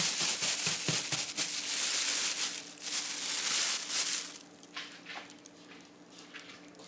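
Dry cat kibble being shaken and tossed in a clear plastic bag to mix it: the plastic crinkles and the pellets rattle against each other. After about four seconds the shaking stops, leaving only faint rustles.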